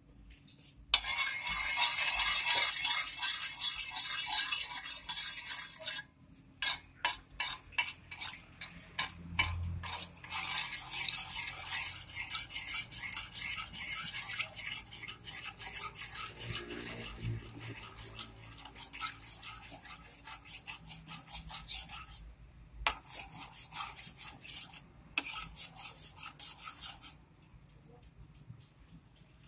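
Metal spoon stirring granulated sugar into vinegar and water in a nonstick pan, scraping over the undissolved sugar crystals on the pan bottom in quick repeated strokes. There are two short pauses, and the stirring dies away near the end.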